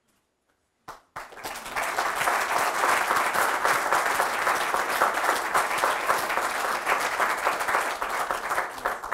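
Audience applauding, starting about a second in after near silence and holding steady.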